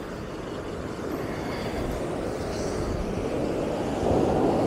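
Steady rush of surf and wind, growing gradually louder.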